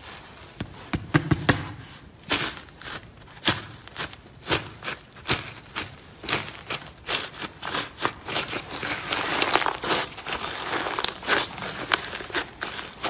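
Slime being squeezed and worked by hand, making irregular sharp clicks and crackling pops, several a second, which grow denser and more crinkly about nine seconds in.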